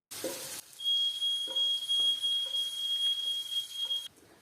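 Smoke alarm sounding one continuous high-pitched tone for about three seconds, then cutting off suddenly, set off by smoke from pan-frying. A brief burst of pan sizzle comes just before it starts.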